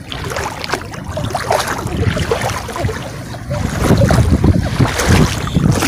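Wind buffeting the microphone over sloshing paddy water, with gusts growing stronger about two-thirds of the way in.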